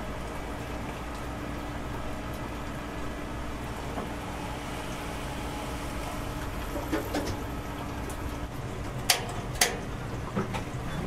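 Eel fillets grilling over a gas grill: a steady sizzling hiss over a low hum. Two sharp clicks about nine seconds in, with a few lighter knocks around them.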